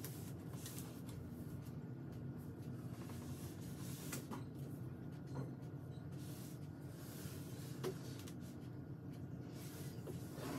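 Large cardboard box being turned around on a tabletop by hand: soft scrapes of cardboard sliding on wood and light knocks, the sharpest about eight seconds in, over a steady low room hum.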